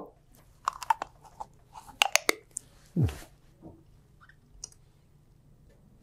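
A soft tongue-holding mouthpiece being fitted in the mouth: a scatter of quiet, sharp wet mouth clicks and smacks in two clusters, about a second in and two seconds in, with one short low vocal sound near the middle.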